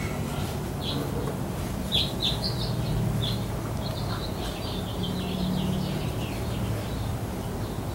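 Labrador Retriever puppies squealing and yipping as they tussle over a plush toy: a run of short, high squeaks, the loudest about two seconds in and the most between four and seven seconds, over a steady low hum.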